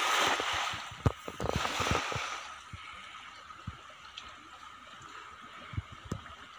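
A cast net splashing into river water: two splashing bursts in the first two seconds with a few knocks, then quieter water sounds with a thin steady high tone.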